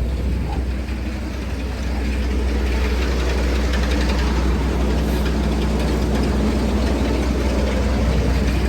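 Tractor engine running steadily, a deep even drone that gets a little louder about two seconds in.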